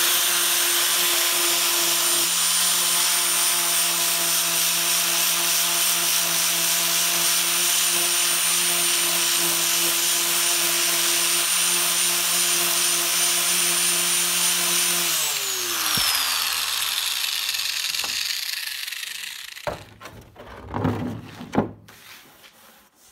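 Angle grinder with a sanding disc running steadily, its whine mixed with a hiss of abrasion as it grinds down the bottom edge of a fibreglass bonnet scoop to level it. About fifteen seconds in it is switched off and its whine falls as the disc spins down, followed by a few brief handling knocks.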